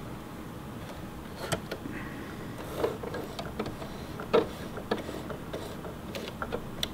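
Singer Heavy Duty sewing machine mechanism turned slowly by hand with the bobbin area open: scattered, irregular faint clicks and ticks from the rotary hook and needle bar as the thread is carried around the hook, over a steady low hum. The thread passes cleanly around the hook this time.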